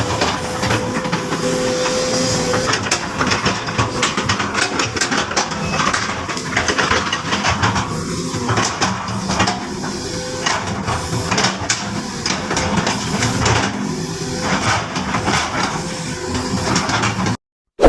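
Sumitomo SH200 hydraulic excavator at work: its diesel engine running steadily under a hiss, with frequent clanks and knocks. It cuts off abruptly just before the end, followed by a short loud sound.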